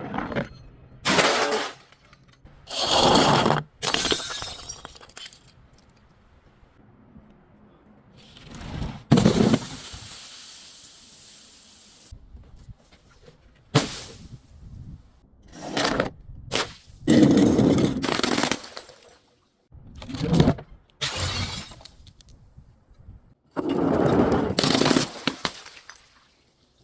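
Objects being crushed one after another, breaking with sharp cracks and crunches, including glass bottles breaking: about a dozen separate bursts. The break about nine seconds in is followed by a few seconds of high hissing rattle.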